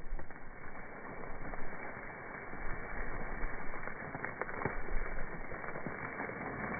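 A weathered rock crumbling under pressing hands: a dense crackling and crunching of small cracks, with sharper snaps here and there as it breaks into blocky fragments.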